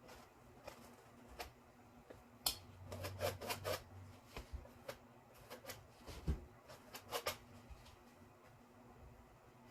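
Faint handling noises of canvas repair work: a scatter of small clicks and short scrapes, busiest about two and a half to four seconds in and again around seven seconds, with a dull thump about six seconds in.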